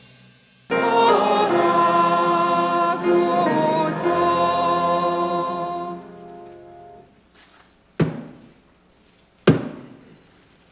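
Choral music with sustained sung notes that ends about seven seconds in, then two sharp knocks about a second and a half apart: a wooden dharma staff (jujangja) struck on the dais, the ritual strikes that open a dharma talk.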